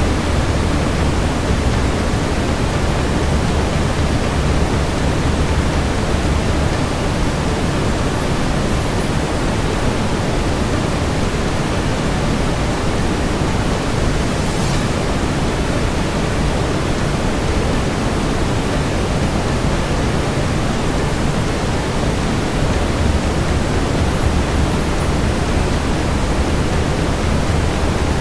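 Steady brown noise: an even, deep hiss with most of its weight in the lows, with one faint click about halfway through.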